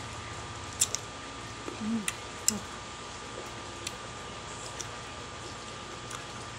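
Mouth sounds of eating siniguelas (Spanish plums): a handful of sharp crisp clicks as the firm fruit is bitten and chewed, with a brief low "mm" hum about two seconds in.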